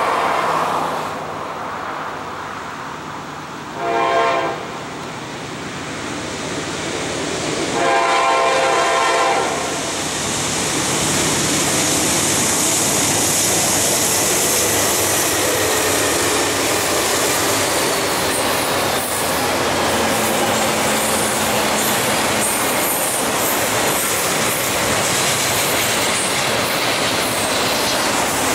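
Norfolk Southern double-stack intermodal train passing close by, led by a GE Dash9-40CW diesel locomotive with a BNSF GE C44-9W, an EMD SD60 and another Dash9-40CW behind it. The lead unit's air horn gives a short blast about four seconds in, then a longer one about eight seconds in. The locomotives then pass and the stack cars roll by with steady wheel clatter.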